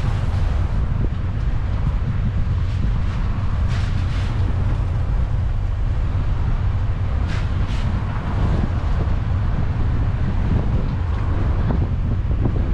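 A car driving along: steady low rumble of wind buffeting the microphone together with road and tyre noise.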